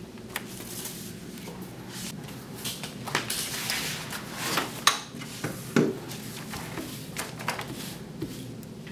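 Handling noises at a classroom table: papers rustling, a backpack set down and a chair moved as someone sits, with a string of knocks and scrapes, the sharpest about five seconds in. A low steady hum runs underneath.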